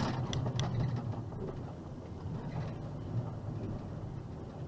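Box truck's engine running at low road speed, heard from inside the cab as a steady low hum with rolling road noise. A few sharp clicks and rattles come in the first second.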